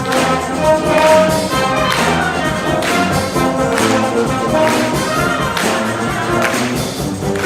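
School wind band playing, brass instruments holding the tune over a percussion hit about once a second.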